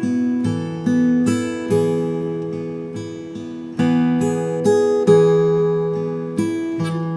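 Acoustic guitar playing a slow, relaxing instrumental, picked notes and chords ringing out and fading one after another.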